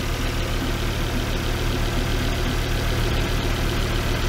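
Volvo S60's inline five-cylinder engine idling steadily with the bonnet open.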